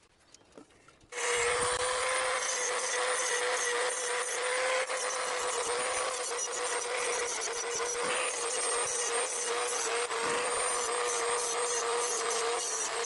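A small high-speed die grinder starts about a second in and runs with a steady whine while its stone grinds the teeth of a worn sawmill bandsaw blade, sharpening them.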